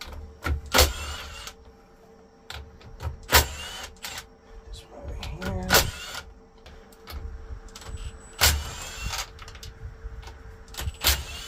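Cordless power tool running in about five short bursts with a rising whine, spinning the 14 mm nuts off lead-acid golf cart battery terminals. There are clicks and knocks of metal between the bursts.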